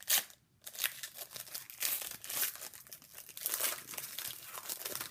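A hockey card pack's wrapper being torn open and crinkled by hand: a sharp rip at the start, then several seconds of dense crackling as the wrapper is handled.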